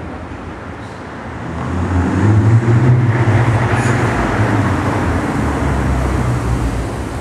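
The 3.5-litre V6 of a 2008 Nissan Altima 3.5SE, running through a Stillen cat-back exhaust with no resonator, echoing in a parking garage. The exhaust note swells about two seconds in, stays loud for several seconds, then eases near the end.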